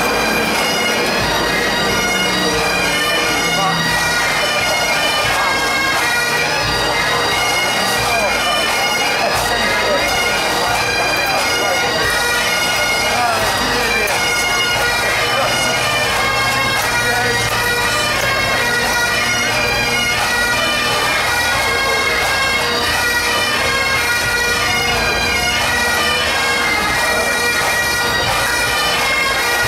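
A pipe band's Great Highland bagpipes playing a tune together over their steady drones.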